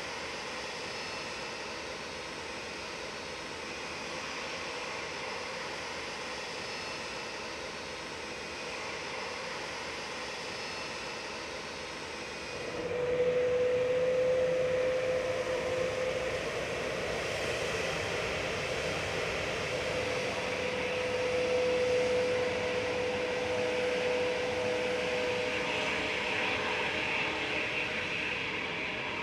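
Jet airliner engines running, heard as a steady noise. About halfway in it changes abruptly to louder engine noise carrying a steady whine that fades out and returns, with a higher hiss building near the end.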